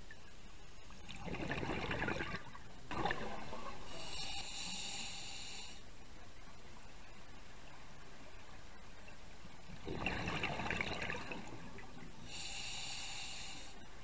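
Scuba diver breathing through a regulator underwater: two breaths about eight seconds apart, each a rush of air and bubbles followed by a high buzzing tone lasting about a second and a half.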